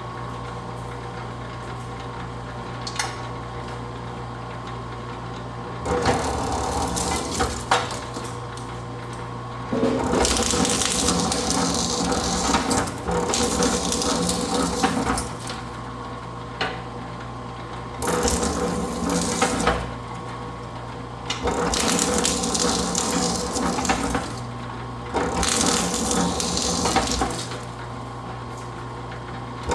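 Electric four-roller Vevor wire stripper running with a steady hum, with about five louder, noisy stretches of several seconds each as lengths of copper wire are fed through the rollers and the insulation is slit.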